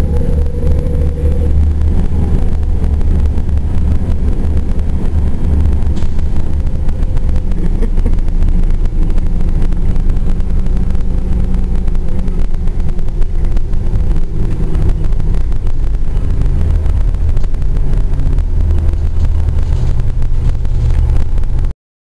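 Inside a Gillig transit bus under way with its HVAC off: the engine and drivetrain run with steady road rumble, heavy in the low end. The sound cuts off suddenly near the end.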